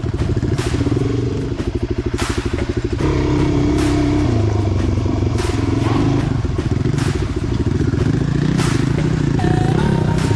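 Dirt bike engine running at low trail speed, its pitch shifting with the throttle about three seconds in, with scattered knocks and clatter from the bike over rough ground.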